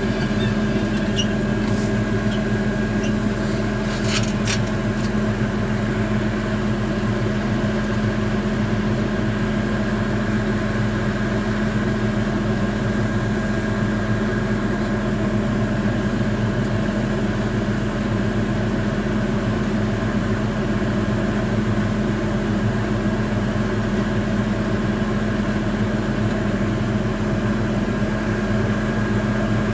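Excavator's diesel engine running steadily at a constant speed, with a few light clicks in the first few seconds.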